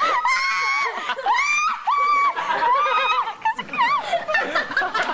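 Young women's high-pitched giggling and squealing laughter, the laughter of someone being tickled.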